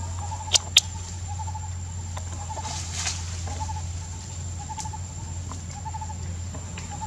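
A bird's short trilled call repeating about once a second, with two sharp clicks about half a second in, over a steady thin high tone and a low hum.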